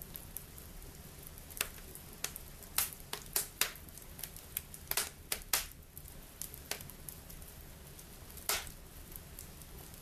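Bonfire embers crackling, with irregular sharp pops over a faint steady hiss.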